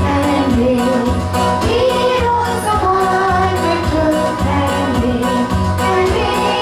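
A Christmas song: singing over instrumental music with a steady beat.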